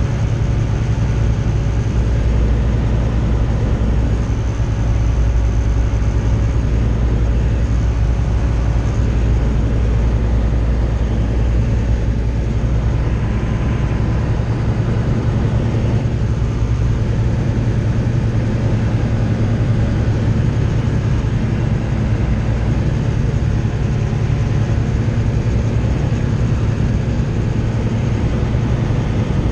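Steady drone of a Tecnam light aircraft's piston engine and propeller in flight, heard from inside the cockpit.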